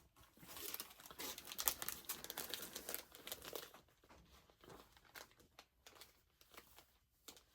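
Crinkling and rustling of comic books being handled, busiest in the first few seconds and fainter after that.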